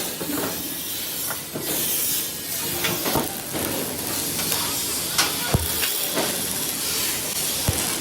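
Factory workshop noise: a steady hiss with a few sharp knocks, the clearest about three, five and a half and seven and a half seconds in.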